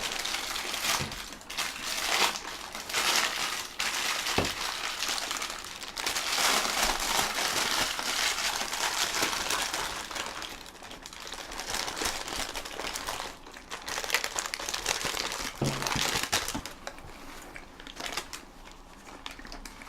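Paper food wrappers crinkling and rustling, handled in irregular bursts for most of the stretch and growing sparser near the end.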